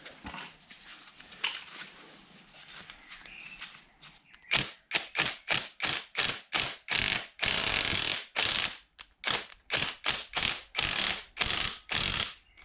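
Ratchet wrench clicking in quick repeated strokes, about two or three a second, winding in the forcing screw of a three-leg puller to draw the harmonic balancer off a TVR Speed 6 engine's crankshaft. The strokes begin about four and a half seconds in, after a few faint clicks.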